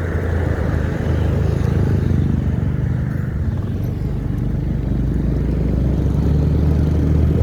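A motor engine running steadily with a low, even hum, a little louder from about a second in.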